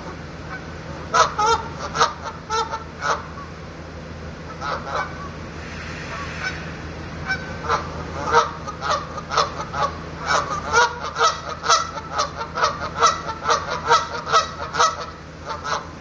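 Canada geese honking: runs of short, sharp honks, a few bursts in the first seconds, a pause, then an almost unbroken string of honks through the second half, over a steady low hum.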